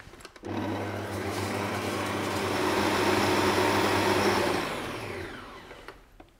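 Kenwood stand mixer running with its beater, creaming butter and sugar. The motor starts about half a second in and grows louder, then is switched off near the end and winds down with a falling whine.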